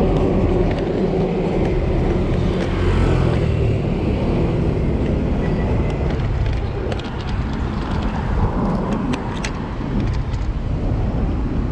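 Motor vehicle engines and road traffic running steadily, a low rumble with passing engine tones and a few light clicks in the second half.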